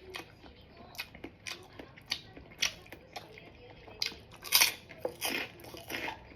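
A person chewing and biting food close to the microphone, heard as irregular wet clicks and crunches, with the loudest crunches about four and a half seconds in. The food is a thick Padang-style omelette.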